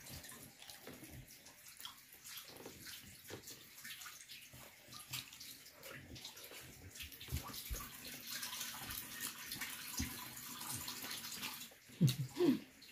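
Close-up wet chewing and small lip smacks of someone eating rice and egg by hand, in many irregular little clicks. About twelve seconds in come a couple of louder smacks as fingers go to the mouth to be licked.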